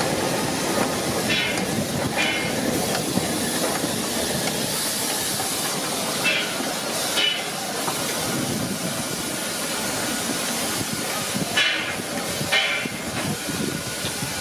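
FS Class 625 steam locomotive moving slowly, its steam hissing steadily. Three pairs of short, sharper bursts of hiss stand out over it, the two in each pair about a second apart.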